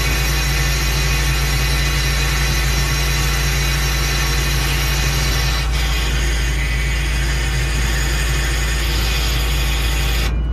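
A heavy recovery truck's engine running steadily with a low rumble while the crane slowly lifts an overturned truck.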